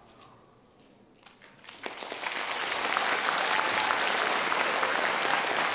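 Audience applause: quiet at first, then a few scattered claps about a second in that swell into full, steady clapping within about two seconds.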